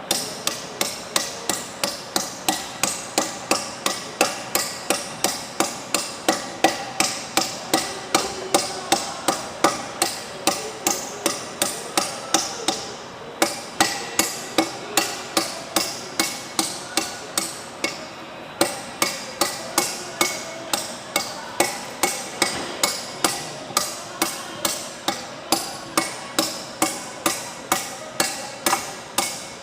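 Steady hammering on metal, about two to three blows a second, with a brief pause about a third of the way in and another past halfway. These are hammer blows during turbine blade replacement on a VTR 304 turbocharger rotor shaft.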